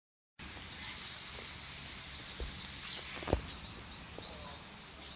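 Outdoor background with repeated short, high bird chirps, and a single sharp knock about three seconds in.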